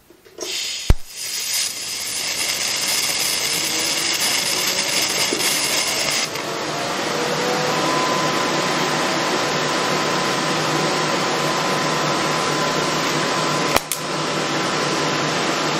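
PrimeWeld TIG325x inverter TIG welder running with a DC arc on scrap steel: a steady hum and hiss, free of static, starting with a sharp click about a second in, with another click near the end. The arc is barely holding and wandering, which the welder puts down to the torch trigger being set to 4T instead of 2T.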